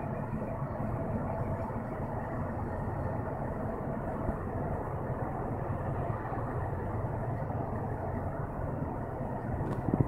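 Steady low rumble of the Mesabi Miner, a Great Lakes bulk freighter, its diesel engines driving it slowly past close by. A brief click and a few low thumps come near the end.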